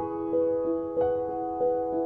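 Gentle background piano music: single notes struck about three times a second, each ringing on under the next.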